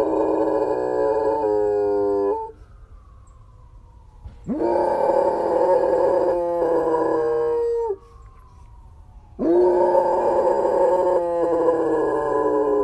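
Large shepherd-type dog howling with its head thrown back: three long held howls with short gaps between, each dropping in pitch at its end.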